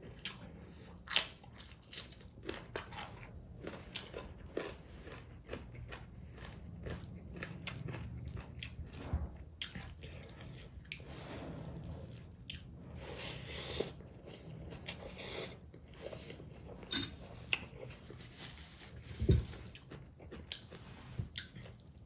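A person chewing and biting food close to the microphone, with irregular crunches and mouth clicks throughout.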